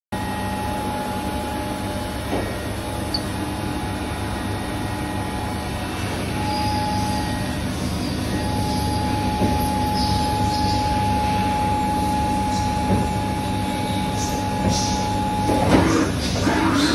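SW BA 322 machining centre running, a steady mechanical hum with a thin high whine that comes in about six seconds in. Near the end the whine stops and a louder rush of noise sets in as coolant sprays through the work area.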